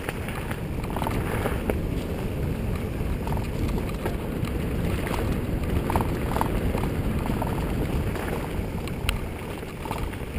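Wind buffeting the microphone and bike tyres rolling over a bumpy dirt forest trail: a steady rushing noise with small knocks and rattles, and one sharper click about nine seconds in.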